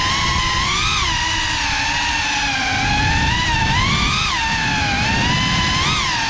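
GEPRC CineLog35 cinewhoop's brushless motors and ducted propellers whining, the pitch swelling and falling back with the throttle: up about a second in, higher around four seconds in, and again near the end. A low rumble runs underneath.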